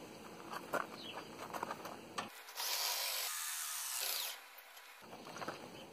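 Cordless drill with a socket extension running for about two seconds, starting about two seconds in, cranking a camper's stabilizer jack up.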